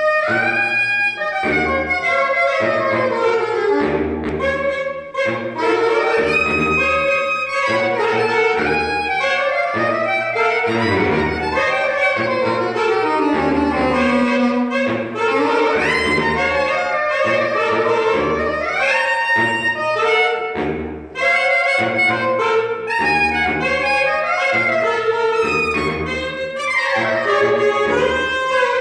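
A saxophone quartet playing: short, detached low notes pulse roughly once a second under moving upper parts.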